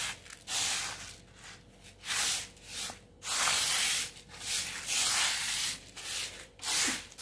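Milled rice grains swishing and rustling as a hand sweeps through them in a woven-bamboo winnowing tray, in repeated strokes about one or two a second, while the rice is spread out to find unhusked grains.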